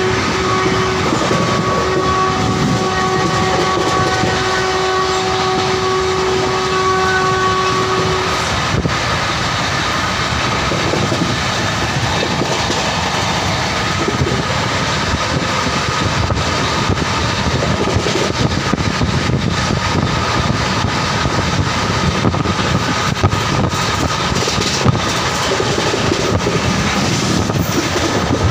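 Express train running along the track with rumble and wheel clatter, while a train horn holds one steady note for about the first eight seconds and then stops.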